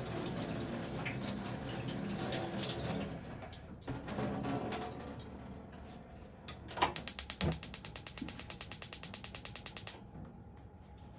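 Gas stove burner's spark igniter clicking rapidly, about ten clicks a second for some three seconds, as the burner is lit; the clicks stop abruptly once it catches. Before it, rustling and rinsing noise at the kitchen sink.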